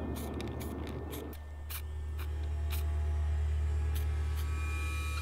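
A string of short, quick hisses from an aerosol spray-paint can, pressed in brief bursts, in the first three seconds. Under it runs background music with a steady low drone, and higher sustained tones come in about two seconds in.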